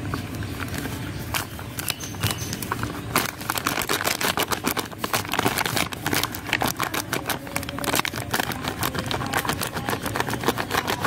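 White cement packet crinkling and rustling as it is shaken and tapped to pour the powder onto a steel plate. It makes a dense run of small crackles and clicks, which gets busier about three seconds in.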